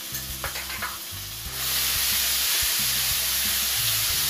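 Garlic, green chilli and ginger paste sizzling in hot melted butter in a kadai, the sizzle growing louder about a second and a half in. A wooden spatula stirs through it near the end.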